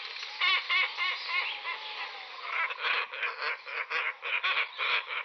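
A flock of birds calling. A run of short, arched calls comes in the first two seconds, and from about halfway the calls come thick and fast, about four or five a second.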